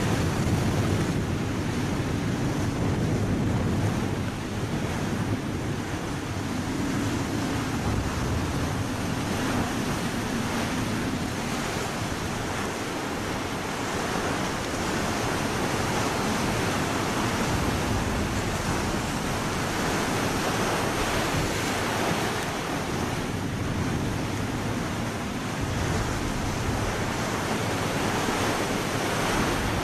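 Sea water rushing past a moving ship's bow, with wind buffeting the microphone: a steady wash of noise.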